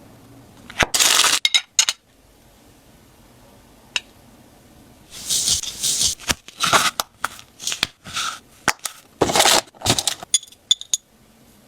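Hands handling jewellery packaging up close: several short crinkling rustles of paper, broken by sharp little clicks, with a cluster of small high clicks near the end.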